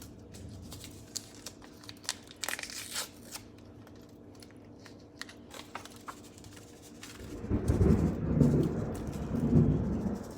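A low rumble of thunder comes in about seven seconds in and swells, peaking twice. Before it, there is light crinkling and rustling from a seasoning packet being torn and shaken.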